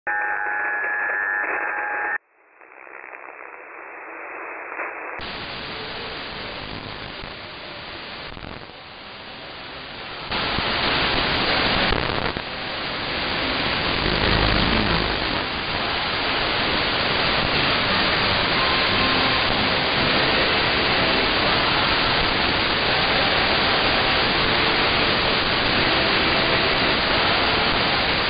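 Longwave radio reception through a KiwiSDR web receiver tuned to 225 kHz. First comes a couple of seconds of narrow sideband audio with steady whistling tones, which cuts off suddenly. At about five seconds the receiver opens into wider AM audio filled with steady static hiss, which grows louder about ten seconds in.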